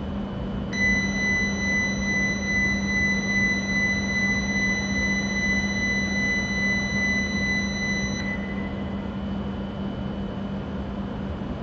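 A single steady electronic warning tone sounds for about seven and a half seconds, starting about a second in and cutting off sharply. It is the departure buzzer before the E7 series Shinkansen pulls out. A steady low hum runs underneath.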